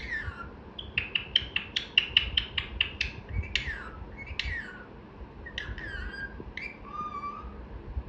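Pet parrot chirping and whistling: a quick run of sharp chirps, about five a second, then a few falling whistles and softer chirps, with one lower whistle near the end.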